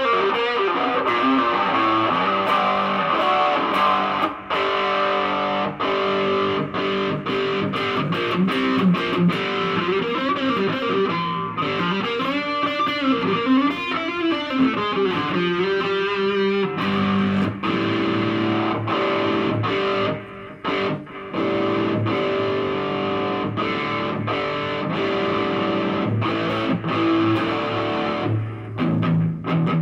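Electric guitar played through an Artec G10x 10-watt practice amp with its distortion on. Sustained notes ring on, with wavering string bends in the middle.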